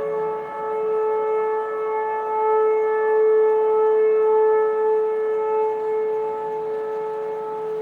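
Several American Signal Vortex R4 outdoor tornado warning sirens sounding a steady tone together in a siren test, at slightly different pitches. The sound swells and fades as the rotating siren heads turn.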